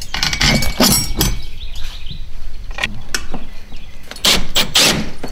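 Irregular knocks and clatter of hand tools and bolt hardware being worked against a plastic kayak hull, with a dense run of knocks near the end.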